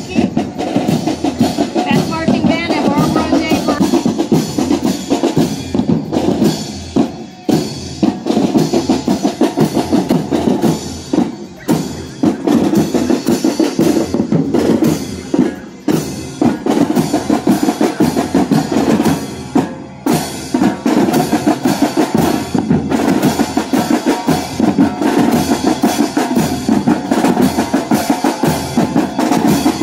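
Parade drums playing a steady marching beat, with snare and bass drum.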